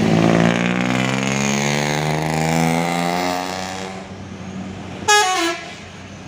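Mercedes-Benz tour bus's diesel engine running as the bus pulls out and drives past, its pitch slowly falling as it goes away and fades. A little after five seconds, a single short horn toot.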